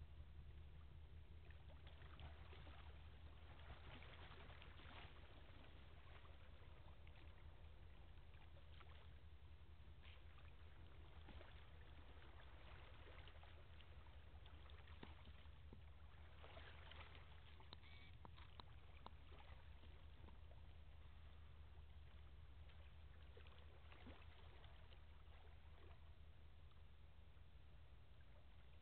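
Faint, steady low drone of a distant tugboat's diesel engine as it pushes its barge upriver, heard under quiet outdoor background hiss.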